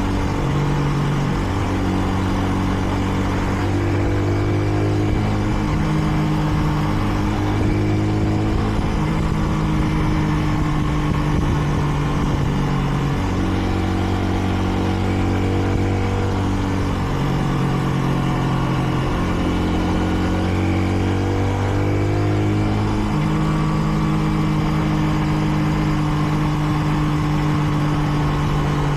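Kreidler Dice CR 125's single-cylinder four-stroke engine running under way, heard from on board the motorcycle. Its pitch holds for a few seconds at a time, then steps and glides up and down as the throttle and gears change.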